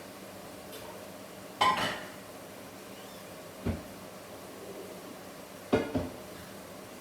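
Three clattering knocks, the first and loudest about one and a half seconds in and the last a quick double, over the steady hum of a running fan.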